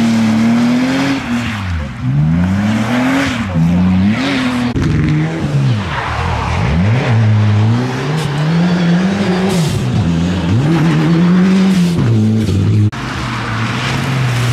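Rally car engines at hard throttle, one car after another, with the pitch rising and dropping again and again through gear changes and throttle lifts. The sound cuts abruptly to another car twice, about five seconds in and near the end. The cars are a BMW 3 Series (E36), a Ford Fiesta rally car and a Toyota GR Yaris.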